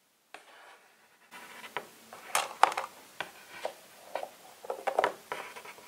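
Handling noise of a Barbie doll and plastic toy kitchen playset: irregular small clicks, knocks and rubbing, starting about a second in.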